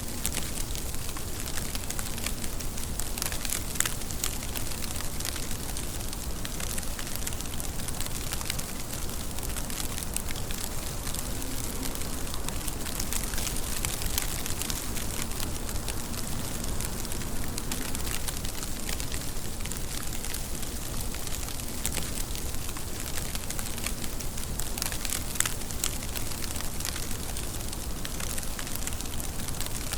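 Steady rain falling, with many separate drops ticking close by over the even rush; two drops land louder, about four seconds in and near the end.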